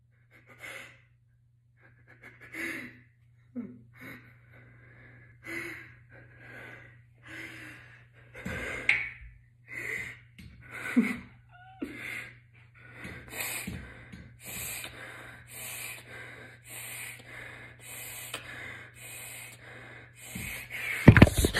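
Heavy breathing with gasps, irregular at first, then settling into faster, regular panting in the second half, over a steady low hum.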